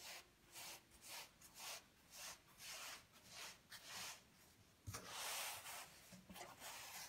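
Faint soft rubbing of hands on dough and a floured wooden board as a long dough rope is coiled into a spiral, a brief brush about every half second, then a light bump and a longer rub about five seconds in.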